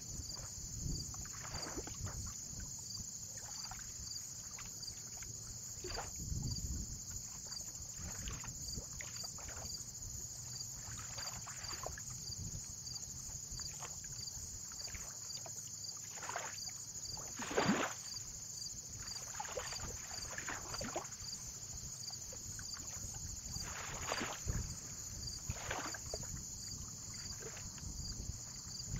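Small lake waves lapping and splashing at irregular intervals a second or a few apart, the loudest about two-thirds of the way through, over a low wind rumble and a steady high hiss.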